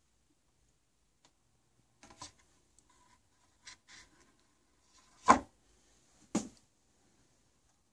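A record being handled and set onto a vintage turntable's platter: a few soft rubs and scrapes, then two sharp knocks about a second apart, the first the louder.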